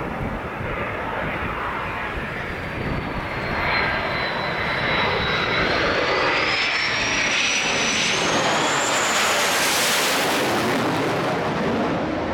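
McDonnell Douglas F/A-18 Hornet jet on final approach, passing low overhead with gear down; its twin turbofan engines make a steady rush that swells about four seconds in and stays loud through the middle. A thin high whine dips and then rises before fading out near the end.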